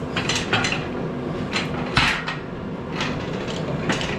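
Metal clanks and clinks of tools and parts being handled, about six separate knocks with the loudest about two seconds in.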